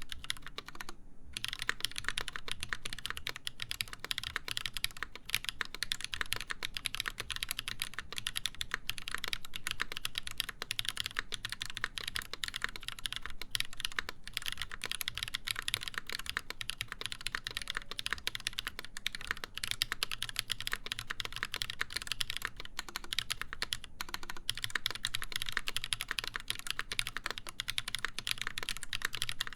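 Continuous typing on an Exclusive E8.5 mechanical keyboard with lubed Holy Panda tactile switches, a full brass plate and GMK keycaps. The keystrokes clack in a dense, steady stream, with a brief pause about a second in.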